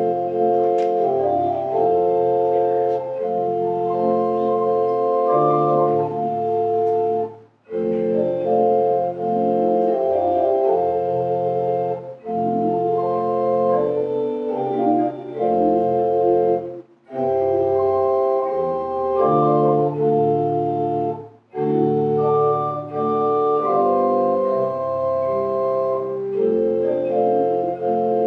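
Organ playing slow, sustained chords in phrases of a few seconds each, with a brief break between phrases.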